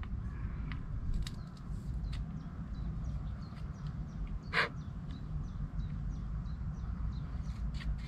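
Outdoor ambience of small birds chirping in quick short falling notes over a steady low rumble. One loud, short, harsh rasp about halfway through stands out above the rest. A few sharp clicks come from handling fishing gear.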